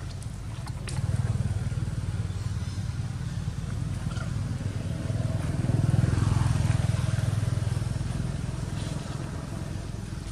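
Engine of a passing motor vehicle: a low, steady hum that swells to its loudest about six seconds in and then fades.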